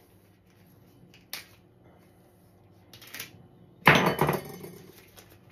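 Plastic bag around a whole raw chicken being torn open by hand: a faint click and a short crinkle, then a louder, sudden tearing crackle about four seconds in that trails off over a second.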